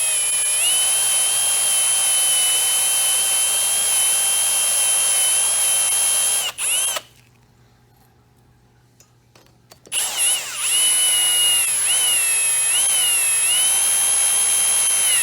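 Electric drill with a 3/16-inch bit drilling out a backup ring jammed in a waterjet swivel body. It runs with a steady whine for about seven seconds, stops for about three seconds, then starts again, its pitch dipping and wavering as the bit bites into the part.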